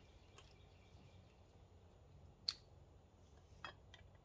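Near silence in a garage, broken by a few light clicks of small hardware being handled: one sharp click about halfway through and two fainter ones near the end.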